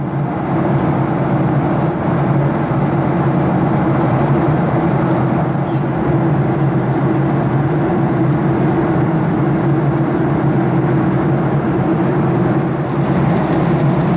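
Steady in-flight cabin noise of a Boeing 737-800: the even drone of its CFM56 turbofan engines and rushing airflow, with a constant low hum, fading in at the start.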